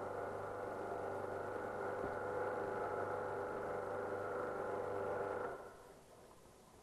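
Pressure washer running with a steady hum while it pressurises a hyperbaric test chamber, then switched off abruptly about five and a half seconds in.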